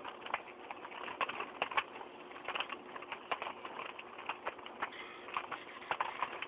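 Nunchucks swung and twirled by hand, giving a string of irregular sharp clicks and rattles from the chain and sticks, with quick swishes through the air.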